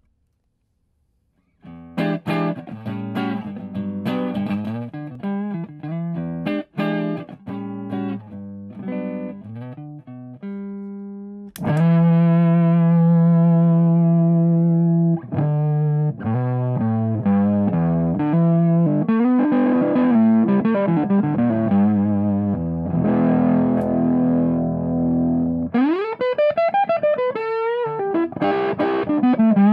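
Telecaster electric guitar played through a tweed amp: picked notes that decay, then a click about twelve seconds in as the germanium fuzz pedal is switched on, and the guitar turns louder with sustained fuzzy chords. Near the end, notes are bent up and back down.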